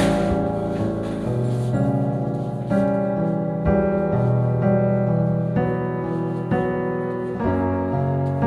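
Background piano music: slow, sustained chords changing about once a second.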